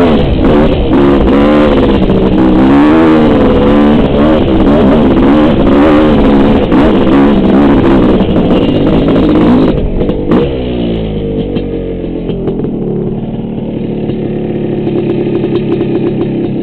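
Honda CR500 two-stroke dirt bike engine revving hard on a dusty climb, its pitch rising and falling with the throttle. About ten seconds in there are a few knocks and the revs fall away as the bike goes down in a low-speed get-off when the front washes out. A lower, steady engine note follows.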